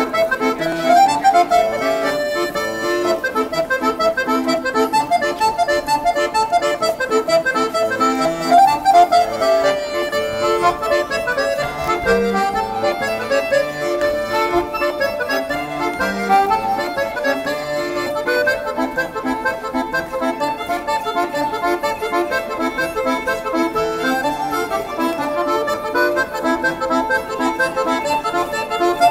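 Instrumental court-dance music: a melody of held notes over an accompaniment, playing without a break.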